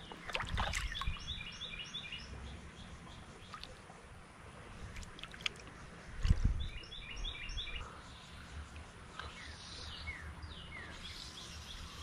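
A small songbird singing a quick phrase of rapid, high, repeated chirps twice, about six seconds apart, with a few short down-slurred notes near the end. Low thumps come with the first phrase and just before the second, over a faint outdoor background.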